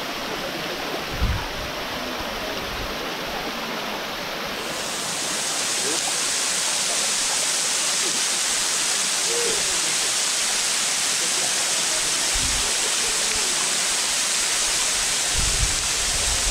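Small waterfall splashing over rocks into a pool: a steady rush of falling water that gets louder and brighter about five seconds in. A few short low bumps.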